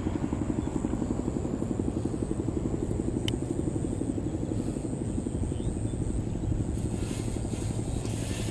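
An engine running steadily with a fast, even chugging, and a thin high whine over it. One sharp click about three seconds in.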